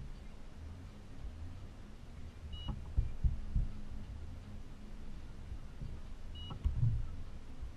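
Two short, high electronic beeps about four seconds apart, each followed by a few low thuds, over a steady low hum.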